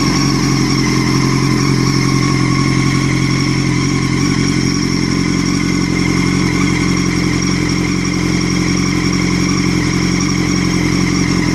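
2006 Honda CBR1000RR inline-four engine running at a steady speed, with a steady high whine over the engine note. The whine is an unexplained fault noise that came on together with the bike dragging in gear and shifting hard, even with the clutch held.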